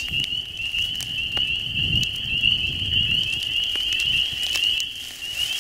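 A steady high-pitched trilling, wavering in a fast even pulse, runs without a break. A low rumble swells and fades about the middle, with a few faint clicks.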